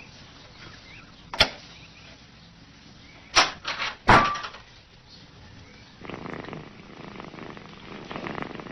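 A few sharp knocks and a quick clatter from a cat's latched puzzle box, the loudest about four seconds in. From about six seconds a cat purrs steadily.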